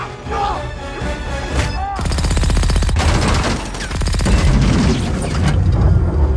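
Action-film soundtrack with music: a rapid burst of gunfire-like shots about two seconds in, then heavy crashing and low rumbling as a vehicle tumbles down a slope.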